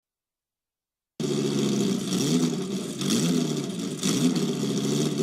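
A motor-vehicle engine revving, its pitch rising in three or so surges after about a second of silence.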